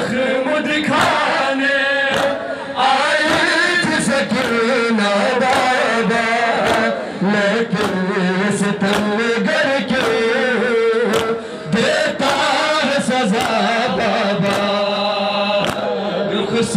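A noha, a Shia lament for Imam Hussain, chanted by mourners' voices, with a steady rhythm of sharp slaps running under it, typical of matam chest-beating.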